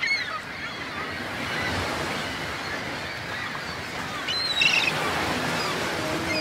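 Surf breaking and washing over a rocky shore, with birds calling over it. There is a louder cluster of calls about four and a half seconds in.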